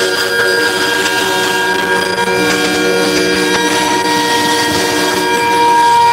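Several truck air horns blasting at once, held steady and overlapping into a loud, sustained chord of different pitches. The sound grows a little louder near the end.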